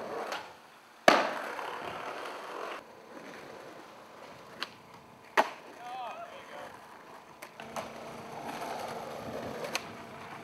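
Skateboard pops and landings with wheels rolling on pavement: a loud sharp clack about a second in followed by rolling, a few snaps of the board around the middle, and rolling again before another clack at the very end.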